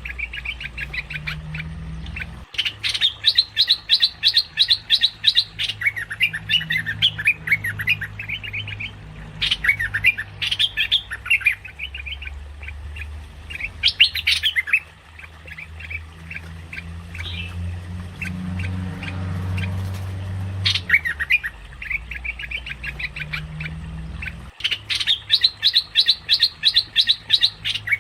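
Merbah lekir bulbul calling in fast, chattering runs of sharp high notes, in bursts of a few seconds broken by pauses, played as a lure call. A steady low hum lies underneath.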